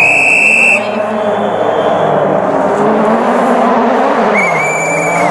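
Toyota Yaris WRC rally car's turbocharged four-cylinder engine approaching while still out of sight. Its pitch rises and falls with throttle and drops about four seconds in. A high steady whistle-like tone sounds during the first second and again near the end.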